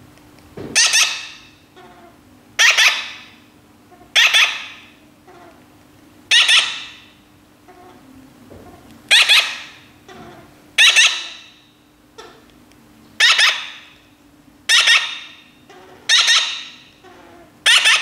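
Baby parrot giving about ten loud, harsh begging squawks, one every couple of seconds, each fading quickly, while it is hand-fed.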